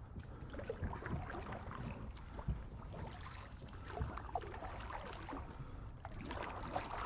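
Kayak being paddled through shallow swamp water: irregular paddle splashes and drips with scattered small knocks.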